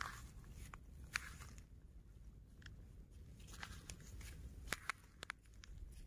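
Footsteps crunching on sand strewn with broken shells, with a few sharp clicks among them.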